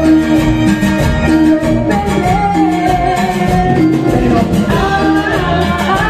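Live band playing Latin dance music: a woman singing into a microphone over electric guitar, electric bass, drums and keyboard, loud and steady.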